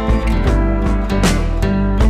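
Instrumental background music with a strummed guitar, bass and a steady beat.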